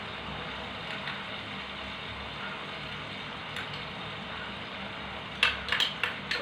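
Chicken frying in a pan on a gas stove: a steady hiss with a low hum underneath. A spoon clinks against a small bowl several times near the end.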